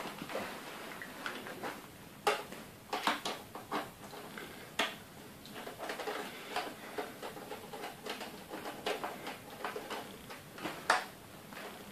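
A screwdriver backing small screws out of a computer case's plastic air duct, with irregular clicks and short scrapes of metal and plastic being handled.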